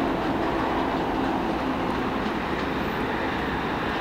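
Train of passenger cars hauled by a BL20GH diesel locomotive rolling away along the track, a steady rumble of wheels on rails that eases off slightly toward the end.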